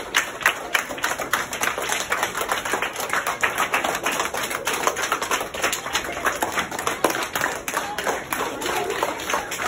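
Many children clapping their hands along a hallway: a dense, uneven run of quick claps that never stops.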